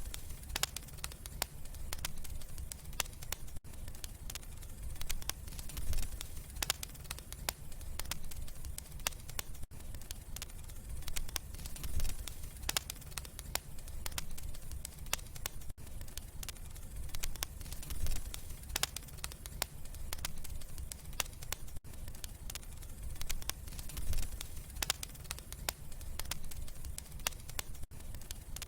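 Wood fire in a fireplace crackling, with frequent sharp pops and snaps over a low rumble of the flames. The level dips briefly about every six seconds.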